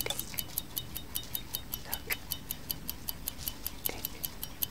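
Clock tick-tock sound effect: evenly spaced sharp ticks, about five a second, over a soft steady hiss.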